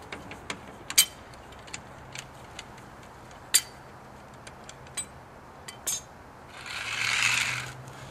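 Car scissor jack worked by its rod crank handle: scattered sharp metal clicks and clinks from the crank and jack, then near the end a scraping rush of about a second as the jack is pulled out across the asphalt.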